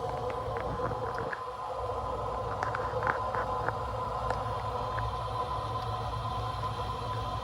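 Steady machine hum with a constant high whine over it, and a scatter of light clicks and ticks.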